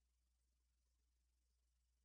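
Near silence: only a faint steady low hum and hiss of the recording.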